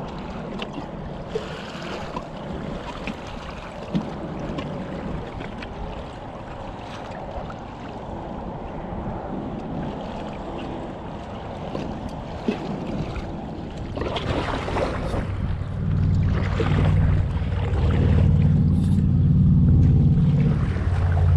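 Water lapping and sloshing against a kayak hull, with a few small knocks. Wind buffeting the microphone grows into a low rumble over the last few seconds.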